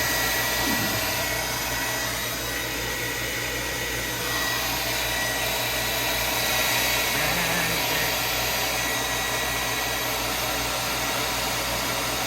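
Hair dryer blowing steadily, with a thin high whine over the rush of air.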